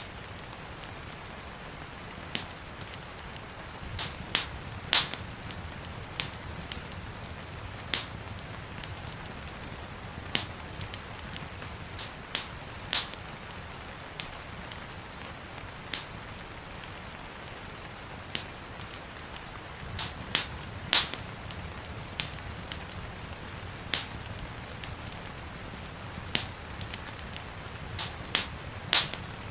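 Wood fire crackling in a fireplace, with sharp irregular pops every second or two, over a steady hiss of gentle rain.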